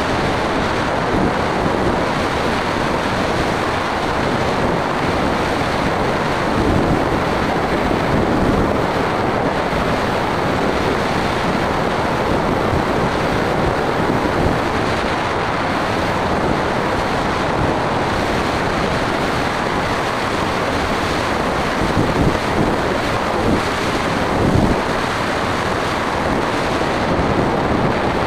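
Rushing airflow buffeting the microphone of a camera mounted on a flying aircraft: a steady rush of wind noise with no clear engine tone, with a few louder gusts near the end.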